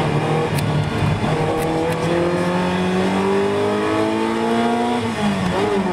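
Ferrari 328's V8 engine heard from inside the cabin, its revs climbing steadily under acceleration for about four seconds, then dropping sharply about five seconds in, as at an upshift, and holding steady after that.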